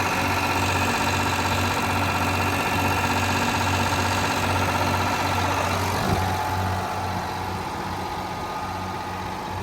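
Detroit Diesel 12V92 two-stroke V12 industrial diesel power unit running steadily. About six seconds in there is a click, and the engine's pitch and loudness step down as it settles to a lower speed.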